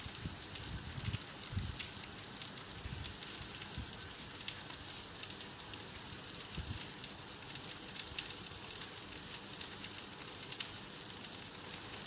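Rain falling steadily: an even hiss with many small, sharp drop ticks scattered through it, and a few dull low thumps in the first couple of seconds.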